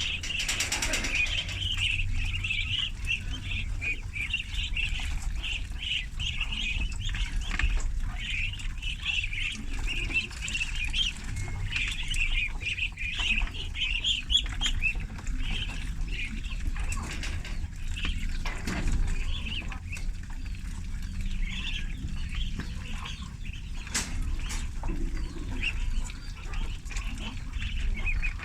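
A brood of ducklings peeping continuously, many short high calls overlapping.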